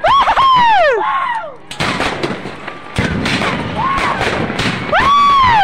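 Aerial fireworks going off: a loud whistling shell whose whistle rises and then falls, then sharp bangs and crackling bursts about two and three seconds in, and a second whistle rising and falling near the end.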